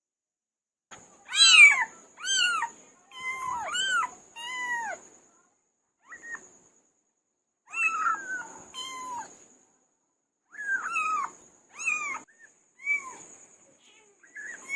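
Kittens meowing: a string of short, high meows that rise and fall in pitch, coming in three runs with short pauses between.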